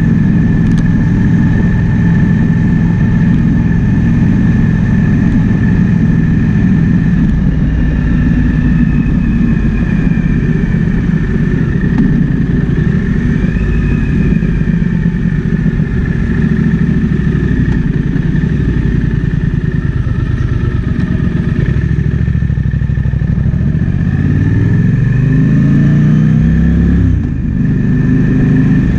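Triumph Speed Twin 1200's parallel-twin engine running under way, mixed with wind noise. Near the end the revs climb steadily for about three seconds as the bike accelerates, then drop off suddenly for a moment before it settles back to a steady run.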